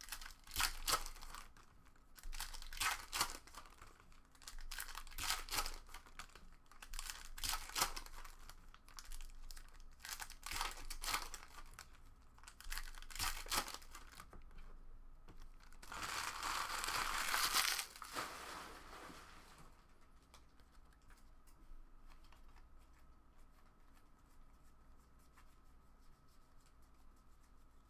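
Foil trading-card pack wrappers crinkling and tearing in a run of short bursts, then one longer crumpling about sixteen seconds in. After it, only the faint rustle of cards being sorted by hand.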